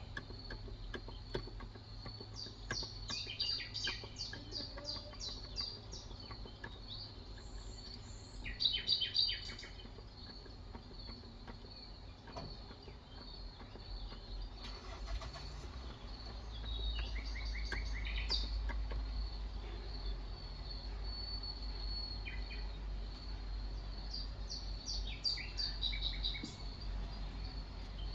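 Small birds chirping in short repeated trills, in several bouts, over faint scattered clicks of keyboard typing. A low steady hum comes in about halfway through.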